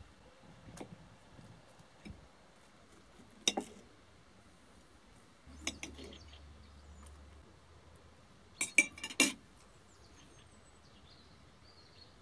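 Knife and fork clinking and scraping on a ceramic plate: a few separate sharp clinks, the loudest cluster about nine seconds in.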